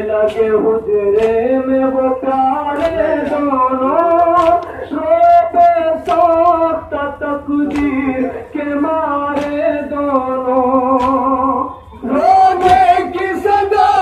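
Male reciters chanting a nauha, an Urdu mourning lament, into a microphone, with sharp slaps about once a second from the mourners beating their chests (matam). About twelve seconds in the chant breaks off briefly, then resumes louder with more voices.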